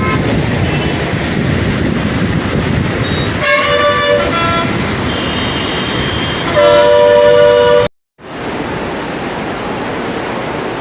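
Vehicle horns honking over a steady rush of water: a short blast about three and a half seconds in and a louder, longer one around six and a half seconds in. The sound cuts out for a moment, then the rushing water goes on.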